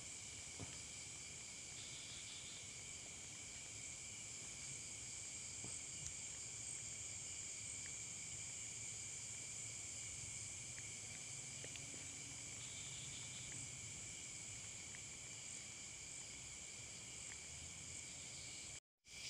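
Faint, steady high-pitched chorus of night crickets and other insects, with a few light ticks; the sound cuts out for a moment near the end.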